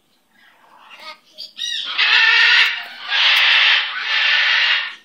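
Sulphur-crested cockatoo calling: a few quick rising chirps, then three long, harsh screeches in a row, each just under a second.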